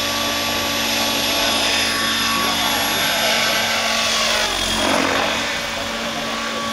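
Henseleit TDR radio-controlled model helicopter lifting off and climbing away, its rotor head and drive making a steady high whine with blade swish. The sound sweeps briefly about two-thirds of the way through as it passes.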